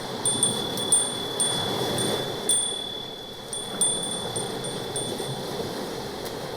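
Wind chimes ringing, struck irregularly every half second or so, over a soft steady rushing noise.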